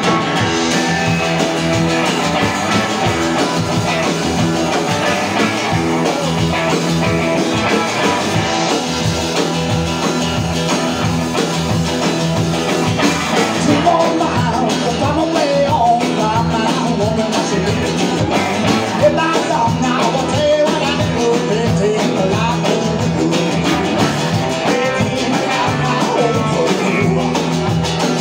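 Live outlaw country-rock band playing: strummed acoustic guitar, electric guitar, upright bass and drums with a steady beat, and a man singing from about halfway through.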